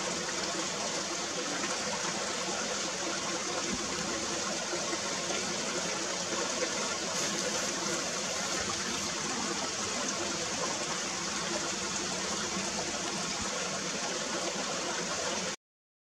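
Shallow, rocky stream running over stones: a steady rush of water that cuts off abruptly near the end.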